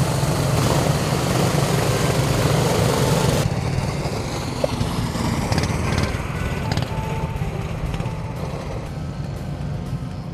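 Go-kart engines running as karts circle a track, mixed with background music. The louder hiss drops away abruptly about three and a half seconds in.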